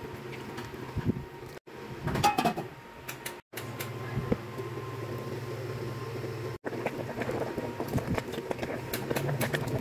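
A wooden spoon stirring and knocking in a pot of simmering soup, with small scrapes and clicks over a steady low hum. The sound breaks off abruptly three times at cuts between clips.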